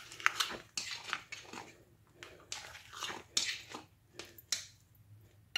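Spoon stirring thick, wet mashed cassava and grated coconut in a glass bowl: a run of short, irregular stirring strokes, about two to three a second.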